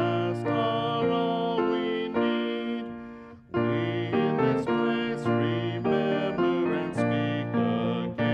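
Piano playing a hymn accompaniment, chords struck one after another in a steady hymn rhythm. It fades into a short break about three seconds in and then takes up again.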